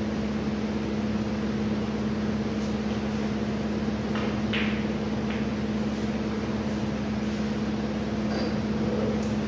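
Steady machine hum with a low drone. A snooker cue strikes the cue ball in a short click about four and a half seconds in.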